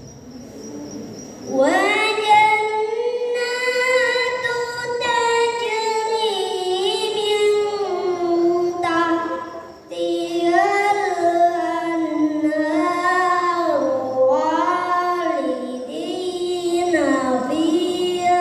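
A young boy recites the Qur'an in the melodic tilawah style into a handheld microphone, holding long, ornamented notes. He comes in after a short pause and breaks for a breath about ten seconds in.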